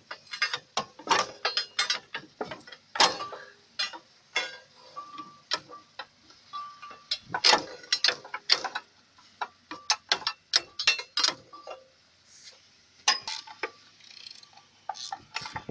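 Metal hand tools clinking and knocking on metal machine parts at an uneven pace, some strikes ringing briefly, as bolts and a cover plate are worked loose from the engine-to-pump coupling housing.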